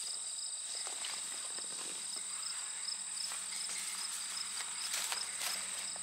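Steady chorus of late-summer field insects, several high trills layered at once, one of them pulsing. Soft footsteps brushing through tall grass come and go under it.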